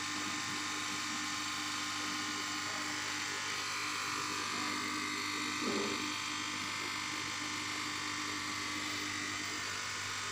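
Steady electric hum of aquarium air pumps and filters, with a constant hiss of bubbling water from the air stones. A short, slightly louder sound comes a little past halfway.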